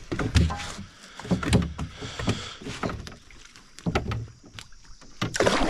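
Irregular knocks, thumps and rattles in an aluminum boat as a fishing line with a fish on it is hauled in by hand.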